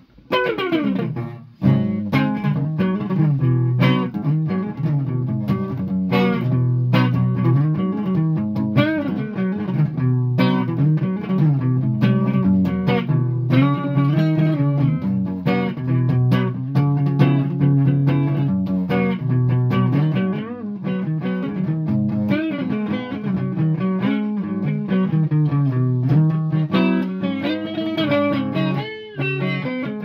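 Flying V electric guitar being played. It opens with a note sliding down in pitch, then runs into a steady riff of sustained, changing notes.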